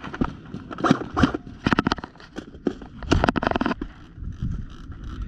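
Clusters of sharp mechanical clicks and clacks from airsoft gear, heard about a second and a half in and again around three seconds in, with a few single clicks before them.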